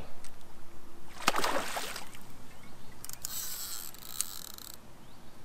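A fishing cast into a river: a sharp click about a second in, then two short hissing bursts of swishing line and splashing water.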